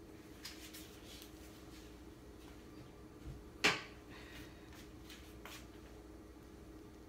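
Kitchen clatter: a few light knocks, then a sharp clack a little past halfway, over a steady low hum.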